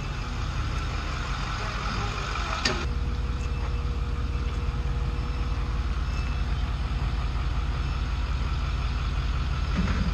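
Full-size pickup truck's engine running at idle as the truck reverses slowly, a steady low rumble. A brief sharp click about two and a half seconds in.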